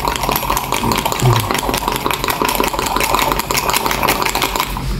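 A spoon beating instant coffee and sugar into a foamy paste in a small cup, a fast continuous clatter of spoon against cup that stops abruptly shortly before the end.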